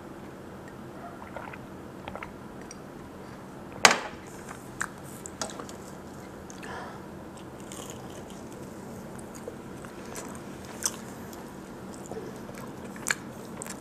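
Close-miked eating: biting and chewing a soft pan-fried hotteok (Korean stuffed pancake), with scattered small mouth clicks and ticks. About four seconds in comes one sharp knock, the loudest sound.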